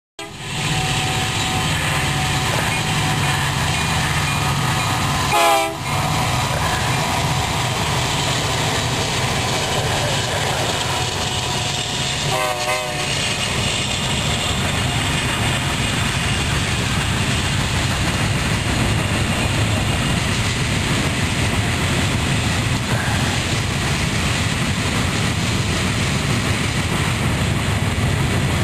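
Loaded coal train's hopper cars rolling past on the rails, a steady rumble and clatter. Two brief warbling sounds cut in, at about five and twelve seconds in.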